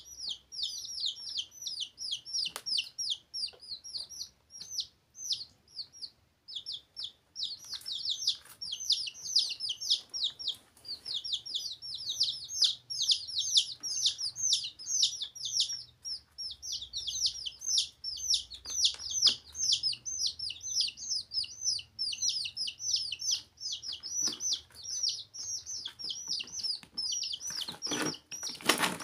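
Several domestic chicks peeping continuously, fast, high, repeated peeps overlapping one another with only a brief pause about six seconds in. Near the end there is a short scuffling noise.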